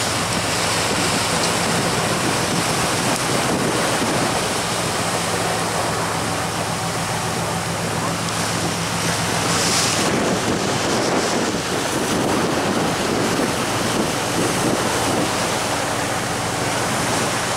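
Wake water rushing past a fishing boat under way and wind buffeting the microphone, over the steady low hum of the boat's engine. A brief louder hiss comes about ten seconds in.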